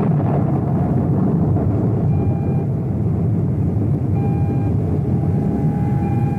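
Rocket blast-off sound effect: a loud, steady roar of rocket engines at ignition and lift-off. Three short electronic beeps sound over it about two seconds apart.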